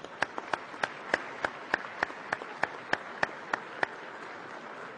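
Audience applauding: a steady wash of clapping, with one person's sharp claps standing out close by, about three a second, until about four seconds in.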